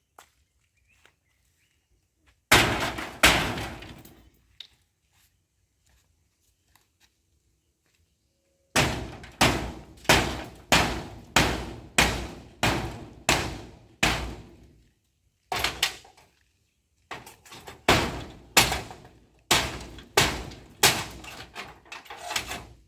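Heavy tool blows striking the timber of a pit latrine being demolished. Two blows come first, then long runs of evenly spaced strikes, a little under two a second, each with a short ring.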